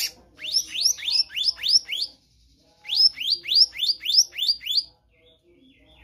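Black-naped monarch (kehicap ranting) singing two runs of rapid, ringing whistled notes, about four a second, each note sweeping sharply upward, with a short pause between the runs.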